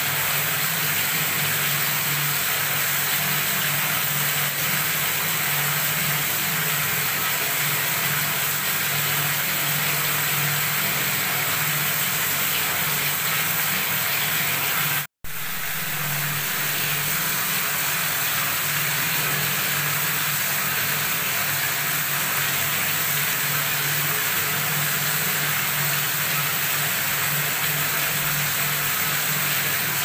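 Water tap running at full flow into a brimming bathroom tub, the stream gushing and splashing steadily with a low hum underneath. The sound cuts out for an instant about halfway, then resumes.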